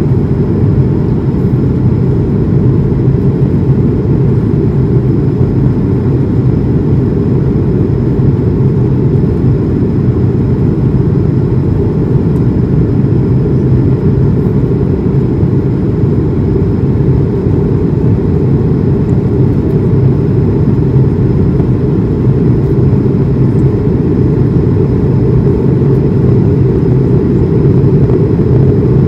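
Steady low rumble inside the cabin of an Airbus A220-300 during its climb after takeoff: the Pratt & Whitney PW1500G geared turbofan engines and the airflow over the fuselage, with a faint steady high whine over it.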